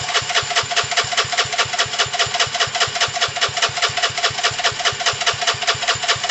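Electric starter cranking a Gilera DNA 125's single-cylinder four-stroke engine. It turns over at an even beat of about seven pulses a second over the starter's whine, without catching. The engine is being fed fuel straight into the carburettor because its fuel pump isn't pumping.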